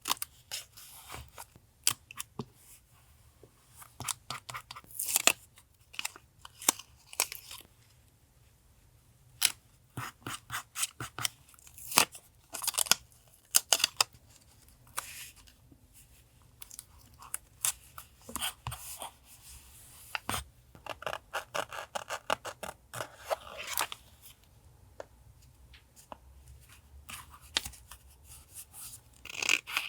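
Scissors snipping paper in irregular runs of short, crisp cuts, with paper being handled and rustled between them.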